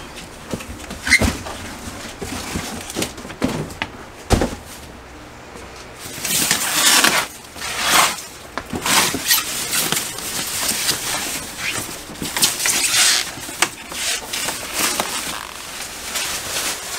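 Unpacking of a wall-mounted mini-split air handler: a cardboard box knocks twice as it is lifted off in the first few seconds, then a thin plastic bag crinkles and rustles in repeated bursts as it is pulled off the unit.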